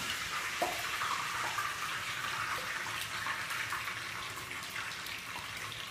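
Steady hissing noise in a working kitchen, with a few light clinks of metal utensils.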